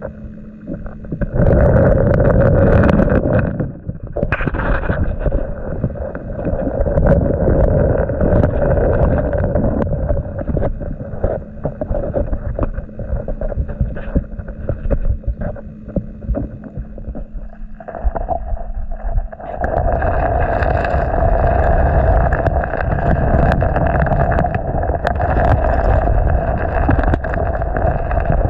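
Muffled rush and rumble of river current heard through an underwater camera housing, with many scattered clicks and knocks; it eases a little twice and is louder in the last third.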